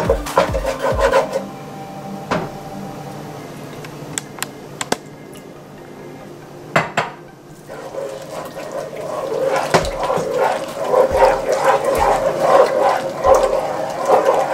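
Wooden spoon stirring and scraping a thick butter-and-flour roux around a nonstick pot as milk is worked in. The strokes are quick and rhythmic at first, ease off to a few light clicks in the middle, then pick up busily again from about eight seconds in.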